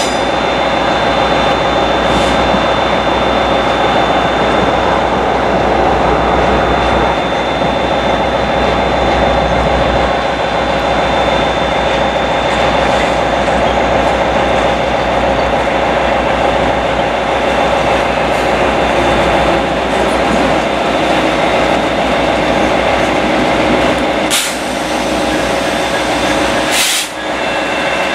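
Class 66 diesel-electric locomotive, with a two-stroke EMD V12 engine, running close by as a steady drone with a held whine over it, moving slowly past near the end. Two brief hisses come near the end.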